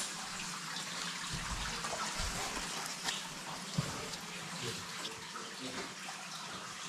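Steady rush of running water in a cave, with a few faint knocks.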